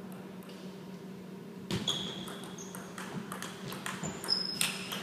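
Table tennis rally: the celluloid ball clicking off bats and table in quick succession, starting a little under two seconds in, with a few short high squeaks among the hits. A steady low hum runs underneath.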